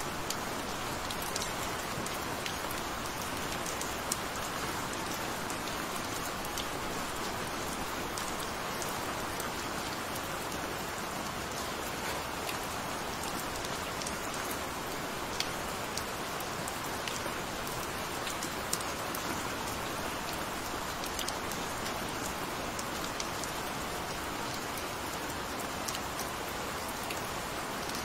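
Steady, gentle rain falling: an even hiss of drops with occasional sharper single drop ticks standing out.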